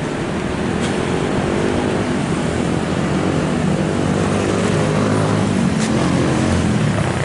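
Road traffic from a busy street below: a steady rumble of car and motorbike engines that grows a little louder in the second half.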